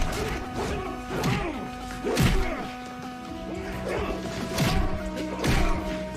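Staged fight sound effects: several sharp hits and crashes, roughly a second apart, over background music with held tones.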